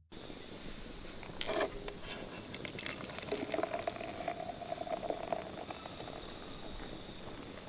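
Steady bubbling and hissing of cooking over a campfire, with scattered crackles and a faint held tone for a couple of seconds in the middle.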